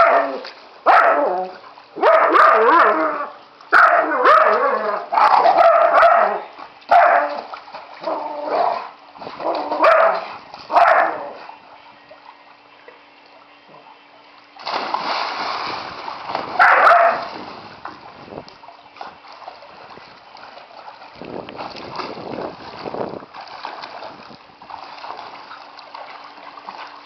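A dog barking in a string of loud bursts for the first eleven seconds or so, and again about fifteen seconds in, over splashing from dogs swimming in a pool. The later part is quieter splashing and lapping water.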